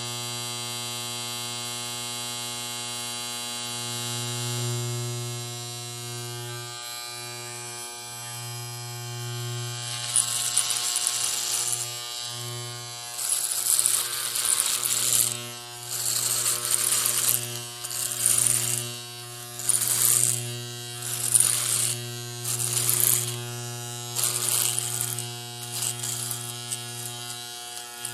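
Electric hair clipper running with a steady low buzz. From about ten seconds in, it makes repeated strokes about every second and a half, each adding a crisp high hiss, as the blades cut through hair.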